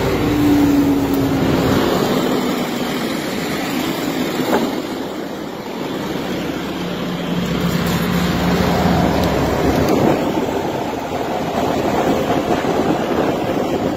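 Victory Sweepers Mark III sweeper running with steady, loud machinery noise, heard from beside the machine. A low hum falls in pitch over the first couple of seconds, and another low hum comes in later.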